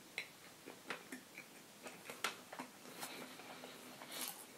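A person chewing a mouthful of fried chicken sandwich on donut buns, close to the microphone: soft, irregular mouth clicks and wet smacks.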